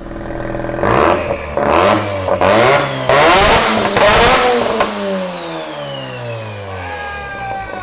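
Mazda FD RX7's turbocharged 13B rotary engine free-revving hard, newly fitted with a big Turbosmart turbo. It gives three quick blips and then a longer rev held near the top. The revs then fall away over about three seconds, with a high whistle dropping along with them.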